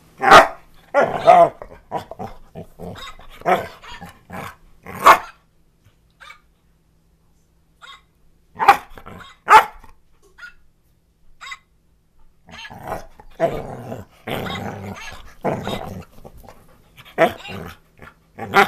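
English Springer Spaniel barking and growling in play, 'talking back' to a plush hand puppet: a string of short barks, a pause of about two seconds, two more barks, then a longer stretch of growling and grumbling before a last few barks.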